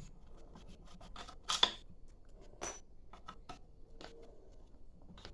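Scattered light clicks and metallic taps of tools and parts being handled while the muffler is unbolted from a petrol brushcutter engine, with two sharper clicks about a second and a half and nearly three seconds in.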